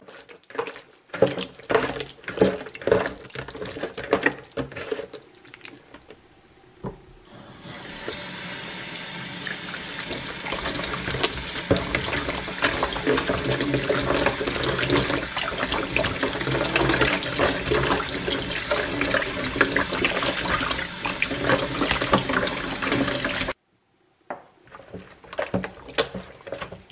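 Raw pork large intestine squelching as hands knead and squeeze it with flour in a plastic bowl, the flour rub that cleans off its smell. About seven seconds in, a kitchen tap runs steadily into the bowl while the intestine is rubbed and rinsed. The water cuts off suddenly near the end, and the squelchy kneading starts again.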